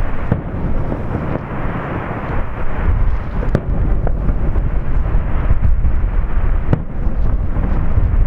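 Fireworks display: aerial shells bursting in a continuous rolling rumble of booms, with a few sharper bangs standing out.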